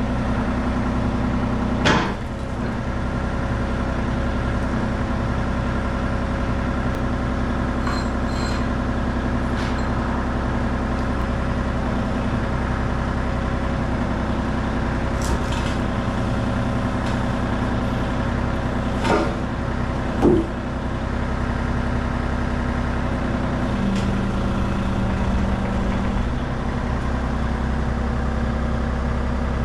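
Excavator engine running steadily, with a few sharp metal clanks, and its low note shifting about 24 seconds in.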